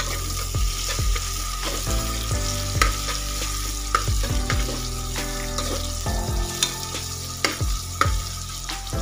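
Sliced onions sizzling in oil in an aluminium pressure cooker, being fried golden with salt. A metal spoon stirs them, scraping and knocking against the pot many times, over a steady low hum.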